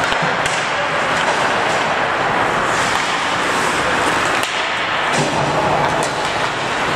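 Ice hockey play: skates scraping the ice and occasional clacks of sticks and puck over a constant loud rushing noise.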